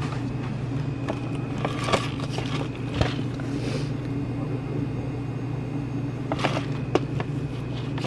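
A steady low hum, with several light clicks and crinkles of plastic-wrapped instant-ramen cups being handled on the shelf, in two clusters about two and about six and a half seconds in.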